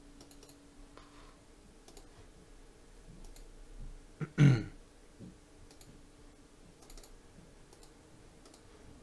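Faint scattered clicks at a computer, and about halfway through a person briefly clears their throat once, the loudest sound here.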